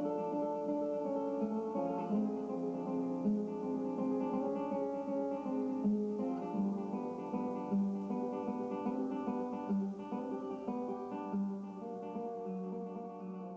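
Acoustic guitar played live, fingerpicked: a run of plucked notes over a ringing low drone note, growing gradually quieter toward the end.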